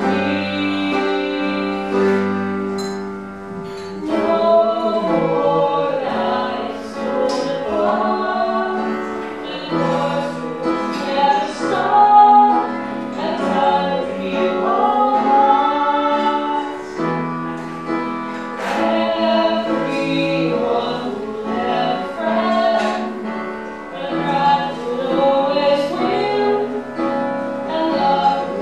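A woman singing a song into a microphone over instrumental accompaniment, with long held notes.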